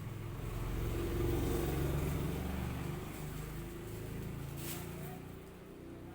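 A vehicle's low engine rumble that swells over the first two seconds and then fades away. A brief sharp noise comes about three-quarters of the way through.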